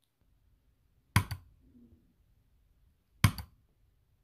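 Mouse-click sound effects of a subscribe-button animation: one sharp click about a second in and a quick double click just past three seconds, with near silence between.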